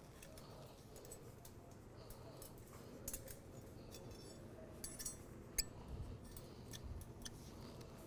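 Faint metallic clicks and clinks of steel tie wire being worked by hand into the hexagonal wire mesh of a gabion basket, scattered irregularly, the sharpest about five and a half seconds in.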